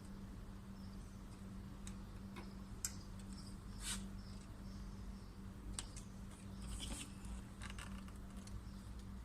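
Faint, scattered light clicks and taps from handling a test light, its ground clip and the wiring, over a steady low hum.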